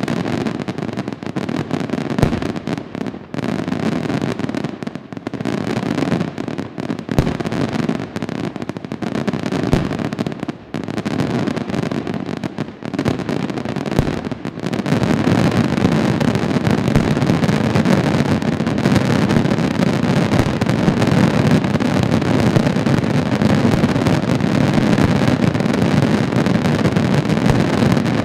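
Fireworks display: irregular bangs from bursting fireworks for the first half, then, about halfway through, a dense barrage so rapid that the bursts merge into one continuous rumble.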